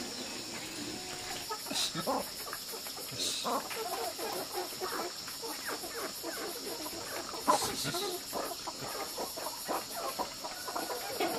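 Chickens clucking: many short hen and rooster calls, scattered and overlapping.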